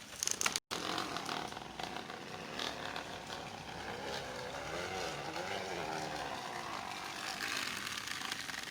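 Plastic bottle wedged against a spinning bicycle wheel, rapidly struck as the bike rolls, giving a continuous buzzing rattle like a small motorcycle engine. Its pitch rises and falls in the middle as the speed changes.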